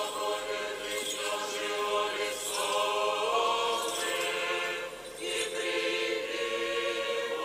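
Orthodox church choir singing a chant in several parts, in long held chords, dipping briefly about five seconds in.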